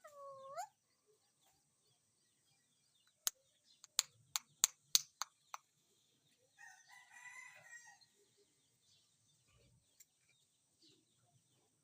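Green parrot calls: a short rising squawk at the start, then a harsh, crow-like call lasting a little over a second. In between comes a quick run of about seven sharp clicks, the loudest sounds here.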